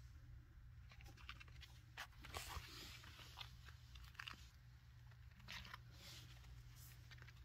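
Faint scattered clicks and scratchy rustles of chinchilla kits' feet scampering over the surface, busiest about two seconds in and again near the end.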